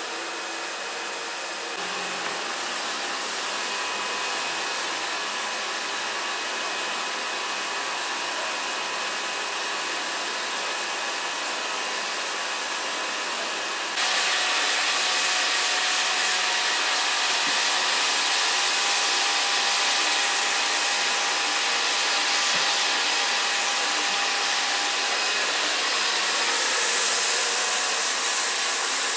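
Pressure washer running: a steady loud hiss of the water jet with a faint whine from the machine, stepping up louder about halfway through.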